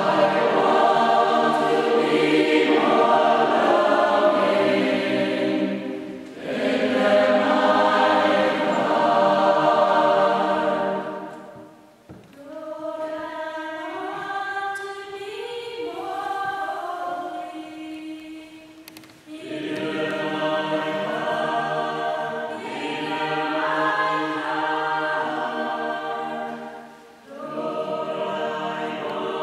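Mixed choir of men's and women's voices singing in sustained chordal phrases. The phrases are full and loud at first, a softer, thinner passage comes at about twelve seconds, and the full choir returns from about twenty seconds, with short breaks between phrases.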